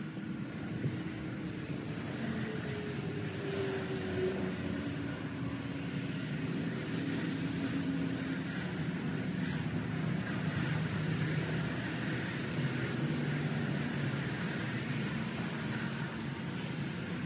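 A steady low mechanical drone, like an engine running, with a faint wavering hum in it.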